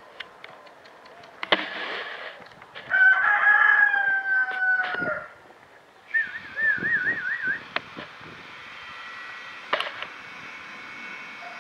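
A rooster crowing: one long, loud call that falls slightly in pitch toward its end, about three seconds in. A wavering high call follows shortly after, with scattered short clicks around it.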